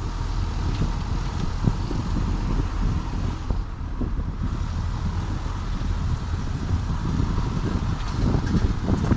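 Volkswagen Passat 3C driving, with steady low road and tyre rumble and scattered light knocks from the wheel area, a few more near the end: the wheel clatter noise.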